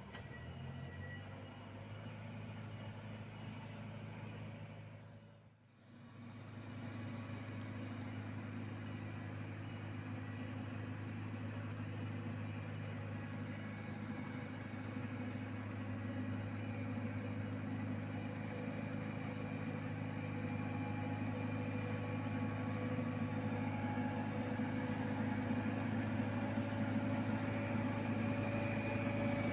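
Diesel engine of road-paving heavy equipment running at a steady speed. It cuts out briefly about five seconds in, then comes back and grows gradually louder toward the end.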